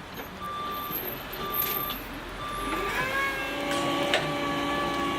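A load-handling machine's reversing alarm beeps about once a second as it moves the one-ton pallets. Then, about halfway through, a motor rises in pitch and runs steadily.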